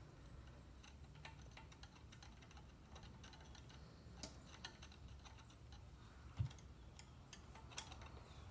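Faint, scattered clicks and light taps of small hand tools and metal engine parts being handled, with one low thump about six seconds in.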